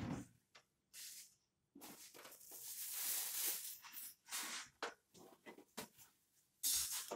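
Thin plastic wrapping crinkling and rustling in irregular bursts as it is handled, with one longer spell of rustling about two to four seconds in.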